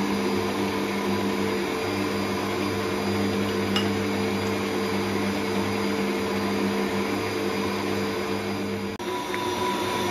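Stand mixer motor running steadily as its balloon whisk beats egg whites at low speed in a steel bowl, a constant electric hum. About nine seconds in the sound drops out for an instant and comes back with a different, higher-pitched tone.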